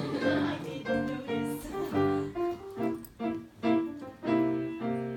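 Live music on a piano or keyboard: a melody of short, separate notes, a few per second, with chords beneath.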